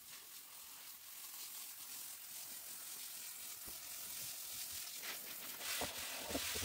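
Garden hose spray nozzle spraying water onto the soil of a raised bed: a steady hiss, with a few soft knocks near the end.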